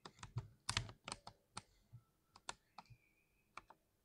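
Keys of a 60% mechanical keyboard being pressed with one finger, giving sharp clacks: a quick run of presses in the first second and a half, then sparser single presses.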